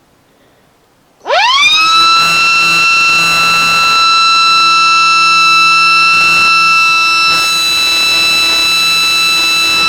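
Small battery-powered mechanical siren switched on about a second in: its pitch rises steeply within half a second, then holds as a loud, steady high wail.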